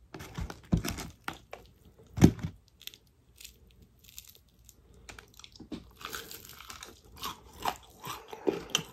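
Close-miked biting and chewing of crispy fried chicken: irregular wet crunches, with the loudest bite about two seconds in.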